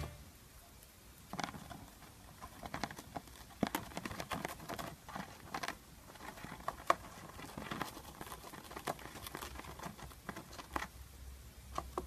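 Small parrot nibbling and shredding a torn paper edge with its beak: faint, irregular clicks and crackles, starting about a second in.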